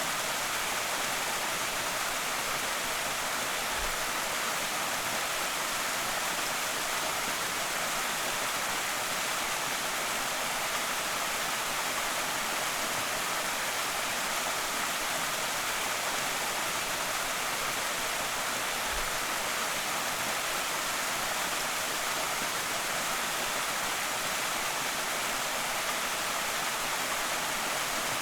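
Creek waterfall: water pouring and splashing, an even, unbroken rushing hiss.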